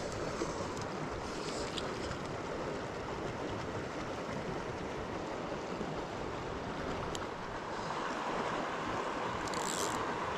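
Steady rush of a flowing mountain river. There is a faint click about seven seconds in and a short scuffing rustle near the end.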